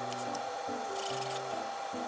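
A kitchen knife slicing raw chicken thigh on a plastic cutting board, a short run of cutting and scraping sounds around the middle. Background music with a simple bass line plays throughout.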